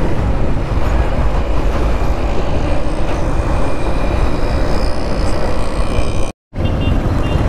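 Motorcycle ride in traffic: steady wind rush over the rider's microphone with engine and road noise underneath. The sound cuts out completely for a moment about six seconds in.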